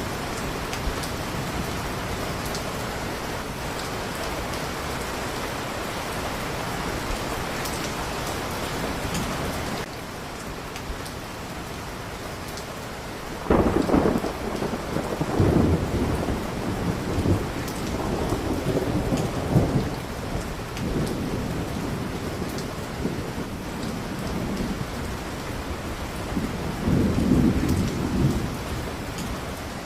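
Steady heavy rain falling, which changes to a slightly quieter rain about a third of the way in. From about halfway, deep rolling thunder rumbles swell and fade over several seconds, with another rumble near the end.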